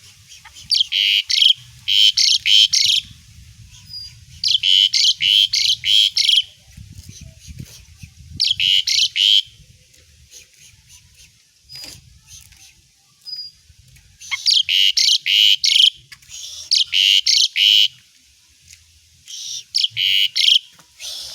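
Asian pied starling (jalak suren) singing in loud, high strings of rapid, fast-repeated chattering notes. There are seven strings, each about one to two seconds long, with short pauses between them.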